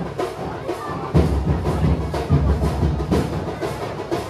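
Steady rhythmic drumming, about three beats a second.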